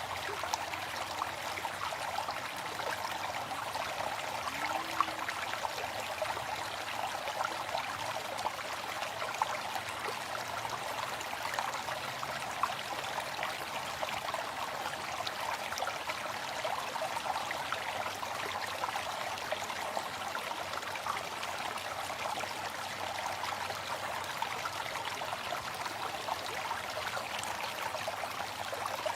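Waterfall: water falling and splashing in a steady, continuous rush, with a few brief sharper splashes.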